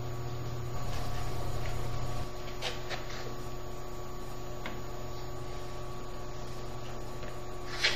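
Steady low electrical hum with a few faint clicks; the hum drops a little about two seconds in.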